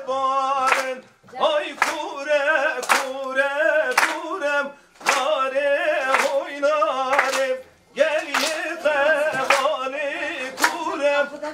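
A male singer performs a Kurdish folk song in a wavering, ornamented line, pausing briefly for breath, over a sharp percussive beat about once a second.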